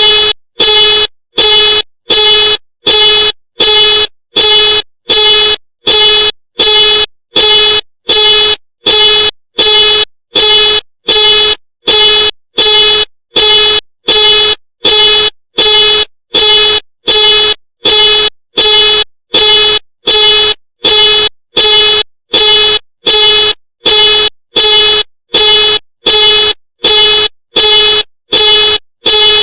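Ford car alarm sounding the car's horn in a steady series of short, loud honks, about three every two seconds, each the same pitch.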